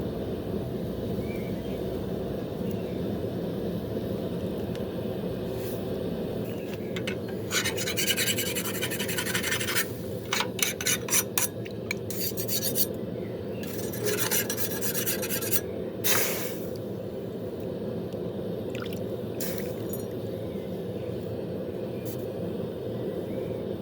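Bursts of quick rasping strokes of hand abrasive work on a steel blade, over a steady low hum.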